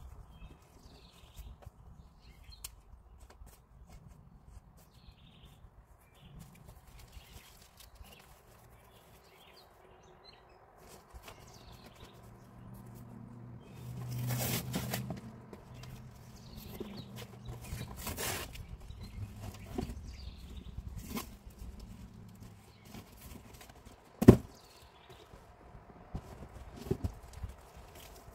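Cardboard boxes being handled, pulled open and flattened: scraping and rustling of stiff cardboard around the middle, with one sharp knock, the loudest sound, a few seconds before the end.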